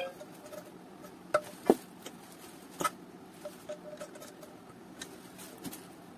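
Scattered small clicks and knocks of a precision screwdriver working the screw of a plastic cookware handle, the handle knocking in the hand, with the loudest knock a little under two seconds in and fainter ticks after.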